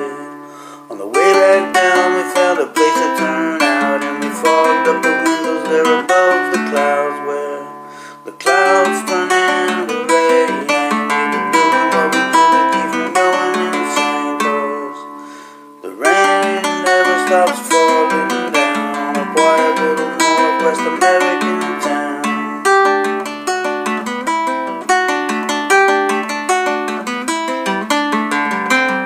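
Solo acoustic guitar playing an instrumental passage of picked notes and chords, the playing easing off to let chords ring and fade three times, about 1, 8 and 15 seconds in, before each new phrase.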